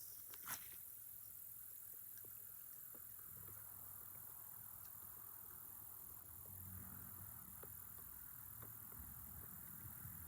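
Near silence: faint outdoor background with a single sharp click about half a second in and a faint low hum from about three seconds on.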